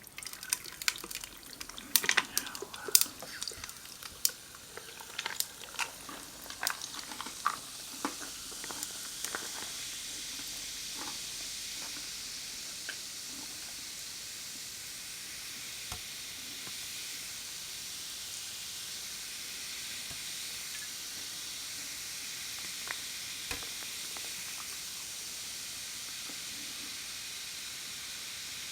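Food frying in a pan: crackling pops for the first several seconds, settling into a steady sizzle.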